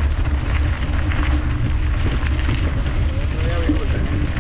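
Wind rumbling steadily on the microphone of a mountain bike in motion, with a haze of tyre noise and small clicks and rattles over it.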